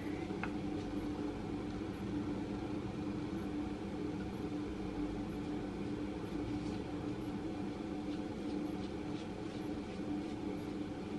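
Steady mechanical hum at a fixed pitch, like a small fan or motor running, with a few faint soft brushing sounds from a tint brush spreading hair dye.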